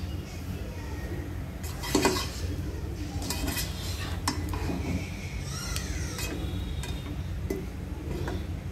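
Spatula stirring and tossing rice in a nonstick pan, scraping and tapping against the pan's sides and bottom, with a louder knock about two seconds in, over a steady low hum.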